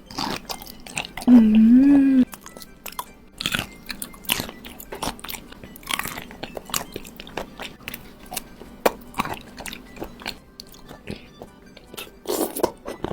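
Close-up wet chewing and biting of raw shrimp in fish sauce: many short smacks and crunches all through, with a hummed "mmm" about a second in.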